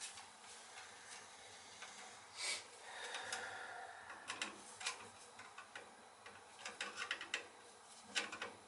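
Faint, scattered small clicks and light scrapes at uneven intervals: hands and small tools working at the wiring terminals of a gas boiler's control.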